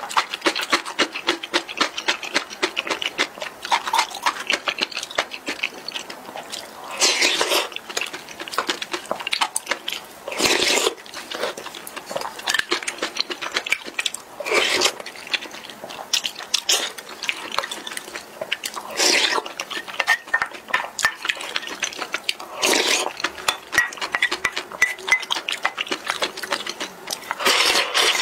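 Mouth sounds of eating noodles: wet chewing and lip smacks, with a loud slurp about every four seconds as noodles are sucked up. Near the end, a slurping sip from the bowl.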